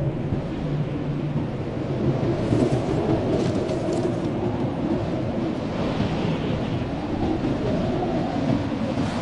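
Strong blizzard wind blowing steadily, a deep rushing noise that swells slightly about two seconds in, with a few faint high ticks.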